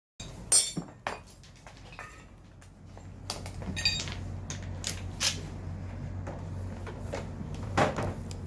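Metal tools and parts clinking and knocking on a workbench as a motorcycle front brake is worked on, with a sharp loud clink about half a second in and scattered knocks after it, over a low steady hum.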